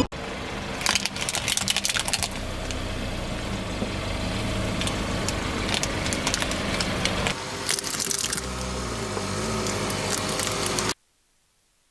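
A car's tyre slowly rolling over and crushing crunchy objects, with clusters of crackling and snapping about a second in and again near the end, over the car's engine running. The sound cuts off suddenly near the end.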